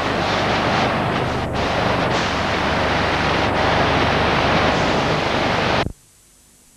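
Loud, steady rushing road and wind noise inside a moving car, cutting off abruptly about six seconds in.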